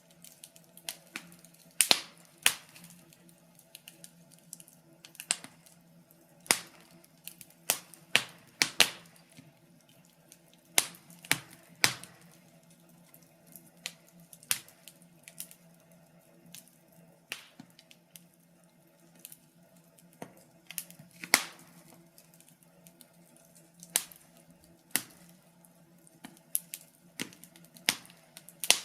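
Wood fire crackling in a fireplace, with irregular sharp pops and snaps, a few of them loud, scattered through the whole stretch.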